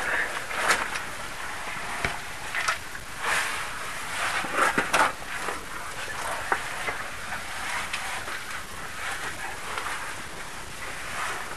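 Caving oversuit and gear scraping and rubbing against rock as a caver squeezes through a tight passage, with irregular sharp knocks and clicks, the loudest cluster about halfway through.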